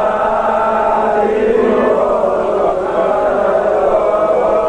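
Men's voices chanting a devotional song together in long held notes, the congregation of a Shia religious gathering singing along.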